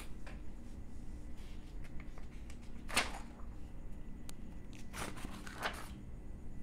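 Paper pages in a ring binder being turned, two rustling page turns about three and five seconds in, over a faint low hum.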